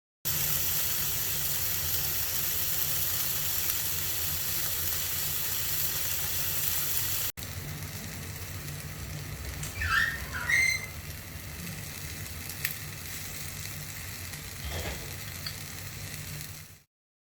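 Steady rain falling, an even hiss. It drops to a quieter hiss abruptly about seven seconds in, with a few short chirps around ten seconds in.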